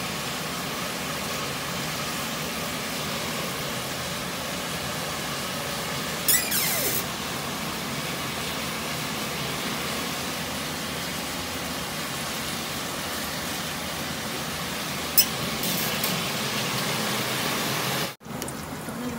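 Steady rushing hiss of a running oven, with two short clatters, about six and fifteen seconds in.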